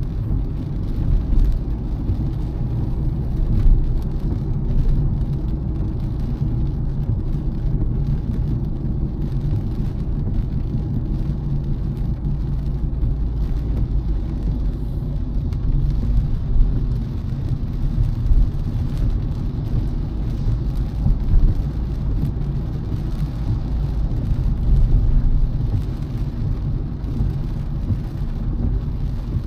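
A car driving along a road: a steady low rumble of engine and tyre noise, with a few brief bumps.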